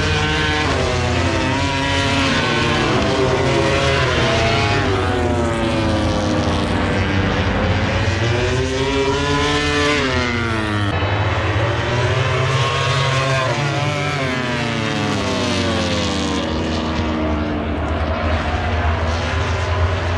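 Several racing motorcycles running at high revs, one after another, their overlapping engine notes climbing and sweeping down as they pass, with a sudden drop in pitch about halfway through.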